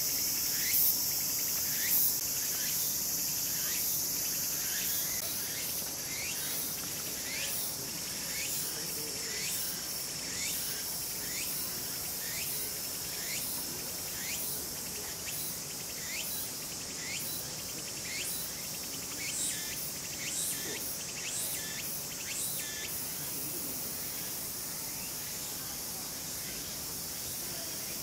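Steady high-pitched drone of insects, with a short falling chirp repeating about once a second over it.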